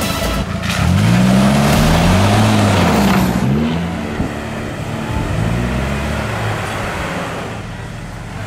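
Off-road SUV engines revving up and down in repeated pulls as the vehicles crawl over rough ground. The revs are loudest in the first few seconds and ease off in the second half.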